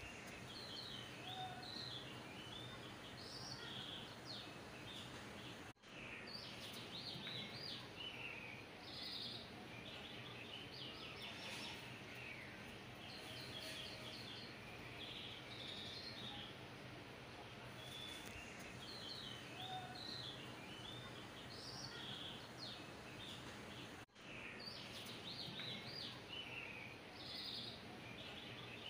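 Birds chirping in short twittering clusters over a steady background hiss. The stretch of birdsong seems to repeat about every 18 seconds, with a brief dropout each time, like a looped nature-sound track.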